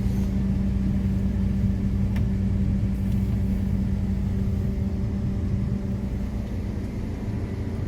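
Large diesel farm machine running at a steady speed: a constant engine drone with a steady hum.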